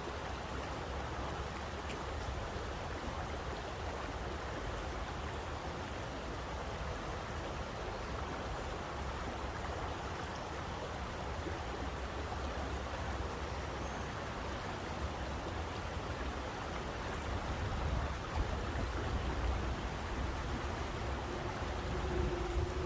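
Steady rush of flowing stream water, an even hiss of water sound with a low rumble underneath. The rumble grows a little louder in the last few seconds.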